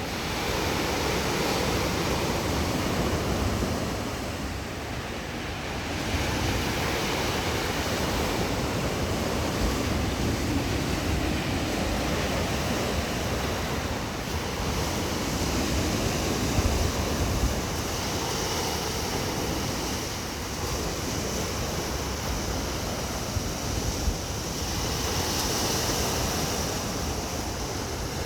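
Sea surf: waves breaking and washing ashore in a continuous rush that swells and eases as each wave comes in.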